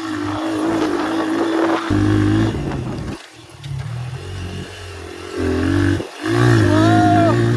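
Honda XR100's single-cylinder four-stroke engine under way on a dirt bike, rising and falling with the throttle. The throttle is chopped about three seconds in and again just after six seconds, then the engine revs back up loud. Wind noise runs over the microphone throughout.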